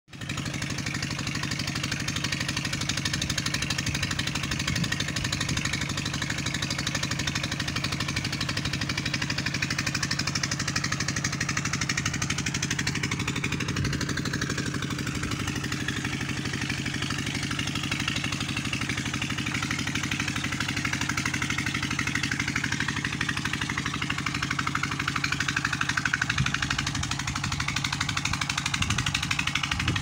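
Engine running steadily at an even speed, a fast, constant low throb that does not rise or fall.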